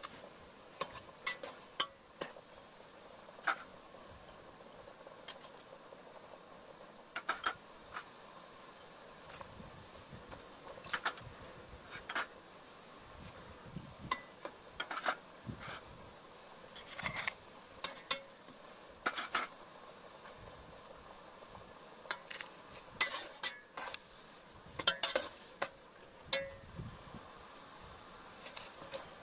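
A metal ladle clinking and knocking against the side of a large aluminium cooking pot at irregular intervals, with clusters of sharper knocks in the second half, as fish pieces are moved around in water.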